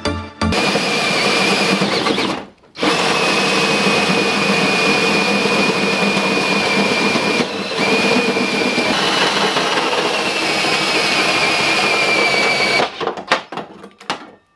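Cordless drill driving a hole saw through the sheet-metal front guard of a 4WD, a steady grinding whine with a high squeal over it. It breaks off briefly about two seconds in, then runs on. Near the end the drill stops and a few metallic clinks and knocks follow.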